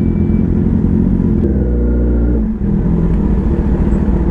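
Kawasaki ZX-10R's inline-four engine running at low revs as the bike rolls in and stops, with other superbike engines running alongside. A steady held engine note comes about halfway through, then drops away suddenly.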